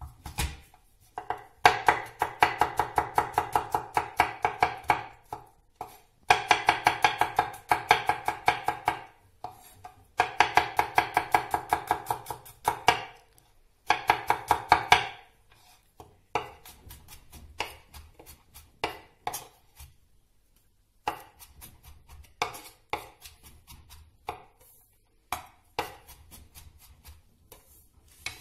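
Kitchen knife mincing garlic cloves on a wooden cutting board: fast runs of chopping strokes, several a second, in four loud bursts. In the second half come lighter, scattered chops.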